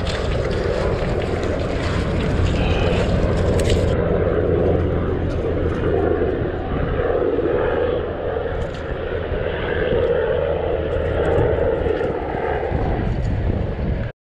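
Small propeller aircraft flying over, its engine a steady low hum.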